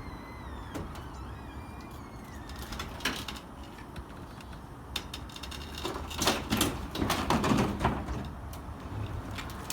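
Snap-on Epiq roll-cab toolbox being moved off the delivery truck to the ground: knocks, then a louder stretch of rattling and scraping from about six to eight seconds in.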